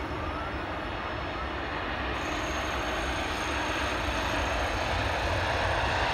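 Airliner's engines running on the runway: a steady rushing noise that grows gradually louder as the plane comes nearer.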